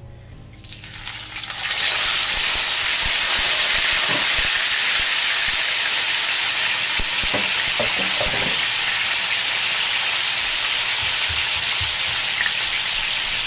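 Dried split milkfish (daing na bangus) sizzling in hot frying oil: the sizzle swells within the first two seconds as the fish goes in, then holds as a loud steady hiss with a few pops of spattering oil.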